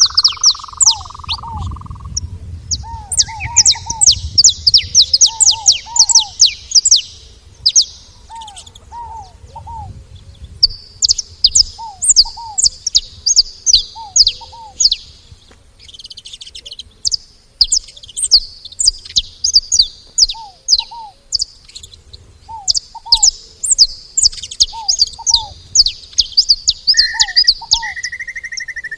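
Saffron finch chirping: long runs of quick, sharp high chirps that break off and resume, while a lower two-note call repeats every second or two.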